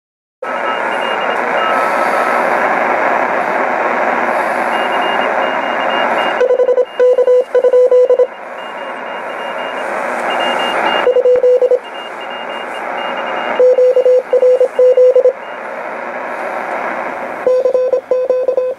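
SBE SB-36 HF transceiver receiving on the 20-metre band: a steady hiss of band noise with a Morse code (CW) signal keyed in runs of dots and dashes at one steady pitch, the hiss dipping each time the signal sounds. A fainter, higher-pitched CW signal comes and goes behind it.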